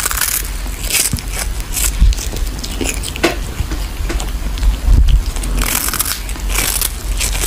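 Kitten gnawing and chewing on a small dried fish, with irregular crisp crunches as it bites.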